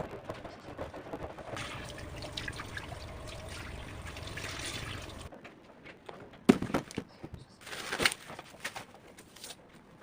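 Liquid pouring for about five seconds, stopping abruptly, followed by a few sharp knocks.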